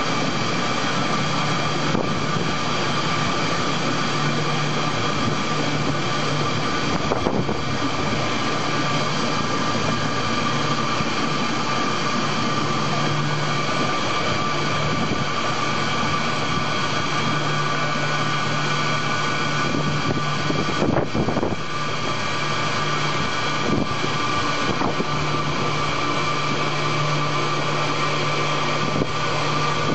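High-shear batch mixer (batch emulsifier) running steadily while mixing a white liquid in a stainless steel tank: a constant motor hum with a higher steady whine. A couple of brief knocks come through, one about a quarter of the way in and one about two-thirds in.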